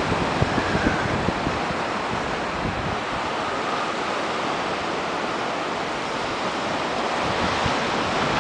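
Sea surf washing onto a sandy beach below cliffs, a steady rush. Gusts of wind buffet the microphone, mostly in the first second and again near the end.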